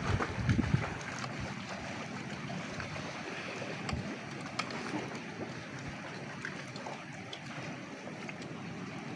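Wind buffeting the microphone in the first second, then a steady hiss of wind and surf from the sea, with a few faint clicks of spoons on plates.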